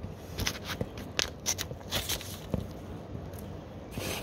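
Puppies playing: a string of irregular light clicks and scrapes, about a dozen in a few seconds.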